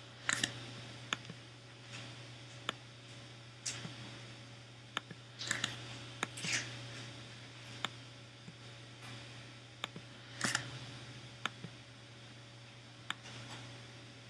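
Faint, irregular clicks and taps of a computer mouse and keyboard, a dozen or so, some sharp single clicks and some short scratchy taps, over a low steady hum.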